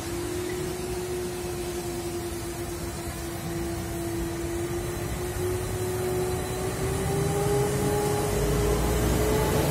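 Freight train hauled by diesel locomotives pulling along the station tracks. The engine note rises slowly in pitch and the sound grows louder, with a deeper rumble swelling near the end.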